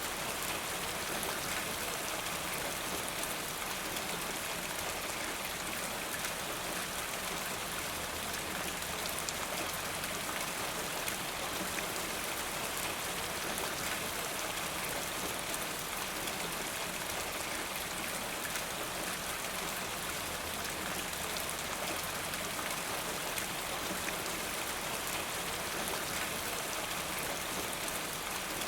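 Steady rain falling, the patter of drops on a surface even and unbroken.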